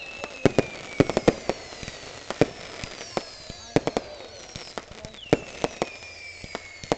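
Fireworks going off: an irregular string of sharp bangs from aerial bursts, with thin high whistling tones that slide slowly down in pitch.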